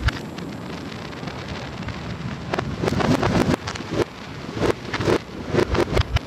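Fireworks played backwards: reversed aerial shell bursts and crackle. There is one loud burst right at the start, then a dense string of them from about two and a half seconds in.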